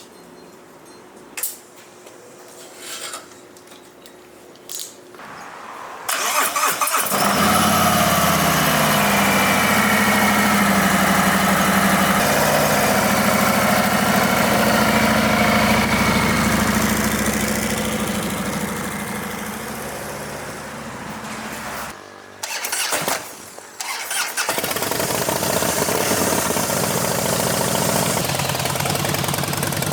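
A few clicks and knocks, then a vehicle engine starts about six seconds in and runs loudly and steadily. It drops out for a couple of seconds near the two-thirds mark, then runs again.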